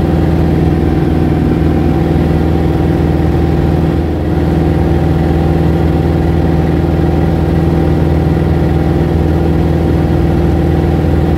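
Small plane's piston engine and propeller droning steadily, loud and close as heard inside the cabin in flight.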